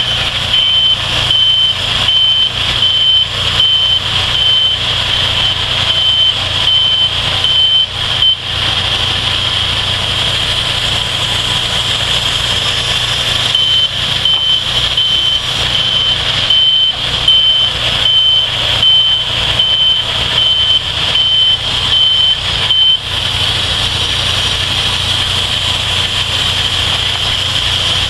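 A backup alarm beeping about twice a second, stopping about eight seconds in and coming back after a gap of about five seconds, over the steady running of portable sawmill engines.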